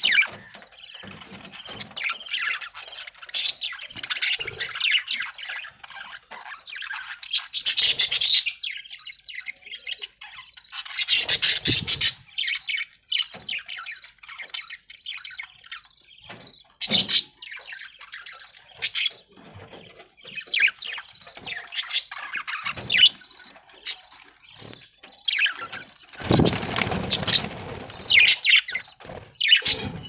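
A flock of budgerigars chattering in quick, high chirps that come in louder clusters, with a short burst of rustling noise near the end.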